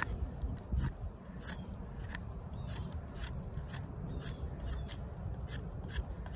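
A D2 steel fixed-blade bushcraft knife shaving wood and bark off the pointed end of a stick in quick strokes, a short, sharp scrape about twice a second.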